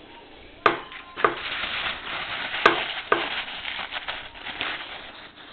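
Hands cleaning a moped carburetor: a patchy hissing and scrubbing with four sharp knocks in the first few seconds, as the part is knocked against the bench.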